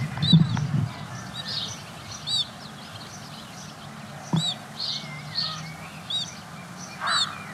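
House sparrows chirping, short arched chirps repeated about once or twice a second, over a steady low hum. A brief low rumble comes just after the start.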